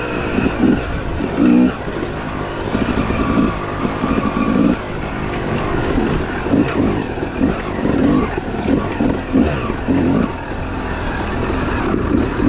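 Yamaha YZ250X two-stroke dirt bike engine revving up and down in short, uneven bursts as the throttle is worked over rough trail.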